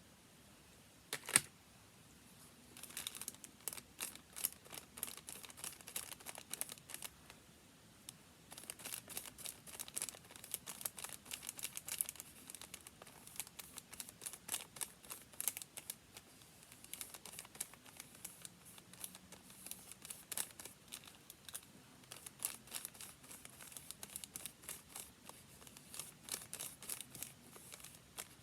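Paper being worked at close range: a long run of quick, scratchy strokes and rustles, with a brief pause near the middle. One sharp click about a second in.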